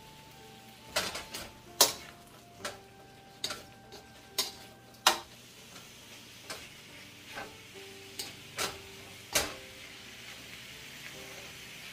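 Stir-frying beef strips with bell peppers and onion in a nonstick wok, tossed with a red plastic slotted spatula: about a dozen irregular knocks and scrapes of the spatula against the pan, over a light sizzle.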